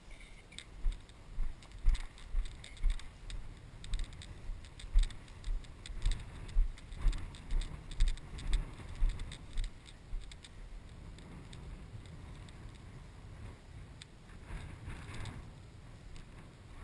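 Footsteps tramping through knee-high wet pasture grass at a walking pace, about two heavy thuds a second with swishing and light clicks, stopping about ten seconds in. After that only a soft rustling of grass remains.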